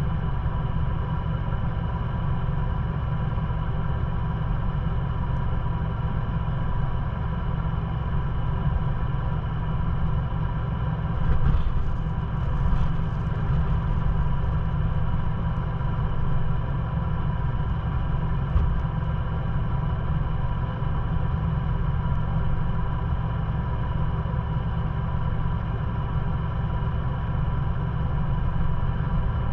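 Ford Bronco engine idling steadily, heard from inside the cabin while the truck sits still. A couple of brief louder sounds rise over the idle a little under halfway through.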